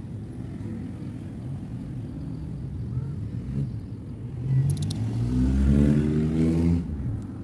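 A motor vehicle passing on the road over a low traffic rumble: its engine grows loud about four and a half seconds in and fades just before the end.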